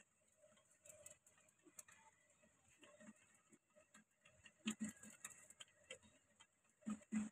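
Rock pigeons pecking seed from a tray: scattered light clicks and ticks, with a few louder knocks about five seconds in and again near the end.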